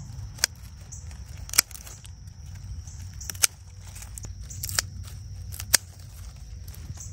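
Hand pruning shears snipping through Sissoo spinach stems: five sharp snips spread over the few seconds, each a short crisp click.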